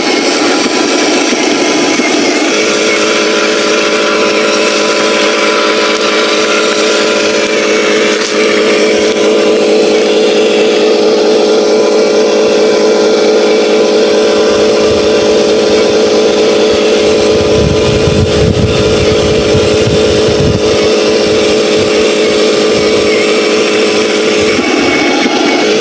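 Huina 1501 RC Scania 770S logging truck running with a steady engine-like drone. A low rumble swells in for a few seconds past the middle.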